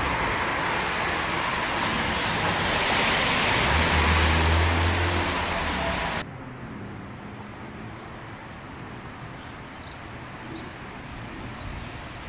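Traffic on a rain-wet street: a steady hiss of tyres on wet road that swells with a low engine hum about four seconds in as a vehicle passes, then cuts off suddenly about six seconds in to a quieter street background with a few faint bird chirps.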